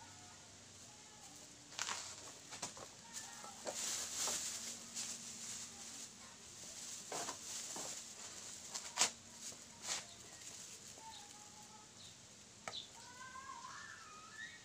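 Black plastic garbage-bag sheeting crinkling and rustling as it is handled on a bamboo-stick kite frame, with irregular sharp clicks and crackles, busiest in the first two-thirds. Short pitched calls follow near the end.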